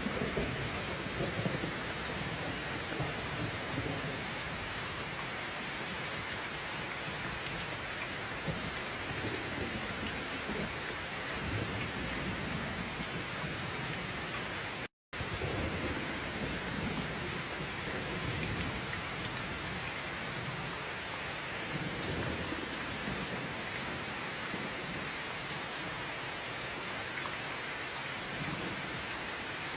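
Steady heavy rain falling, with low thunder rumbling on and off beneath it. The sound drops out completely for a split second about halfway through.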